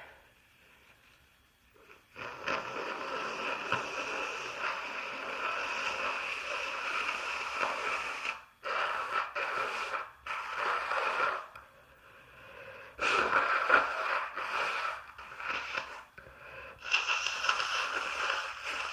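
A congested woman blowing her nose hard several times: one long blow beginning about two seconds in and lasting about six seconds, then a run of shorter blows separated by brief pauses.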